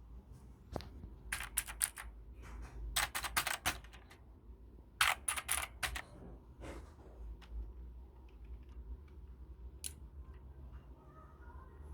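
Keys of a Hacker K640 keyboard being pressed in short runs of quick clicks, with pauses between the runs.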